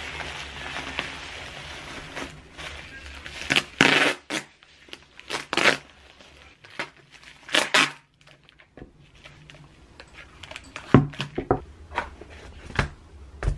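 Bubble wrap crinkling as it is rolled around a camera, then brown packing tape pulled off its roll in several loud rips. Near the end, a few sharp knocks.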